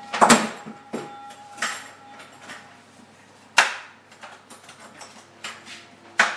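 Irregular knocks and clatters of hard objects being handled and set down, with a few loud sharp ones: the loudest is just after the start, another is about three and a half seconds in, and one comes near the end.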